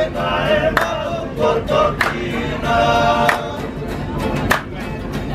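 Several men singing together to an acoustic guitar, with sharp hand claps through the song.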